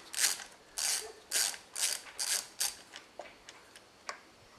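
Hand ratchet wrench clicking in short back-and-forth strokes, about two a second, backing out the bolts on a chainsaw's side cover. Near the end it thins to a few light clicks.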